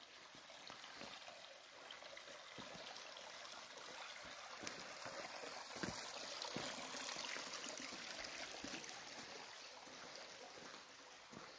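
Shallow stream trickling over stones and a small ledge, a faint steady rush of water, with a few soft knocks along the way.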